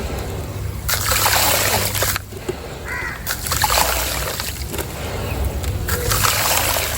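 Wet sand-and-cement texture mix being poured, splashing and sloshing in three separate pours.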